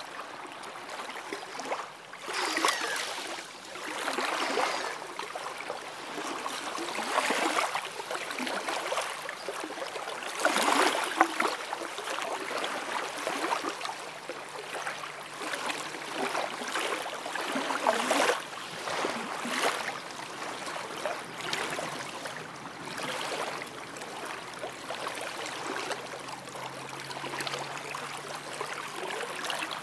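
Small lake waves lapping and washing onto a sandy shore, each wavelet breaking in a soft rushing swell every couple of seconds, with the water fizzing steadily in between.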